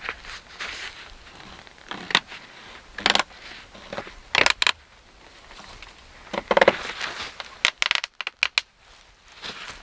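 Hands working at a foil-lined emergency-blanket tarp and cord on a log wall: irregular bursts of crinkling and rustling, with a quick run of sharp crackles near the end.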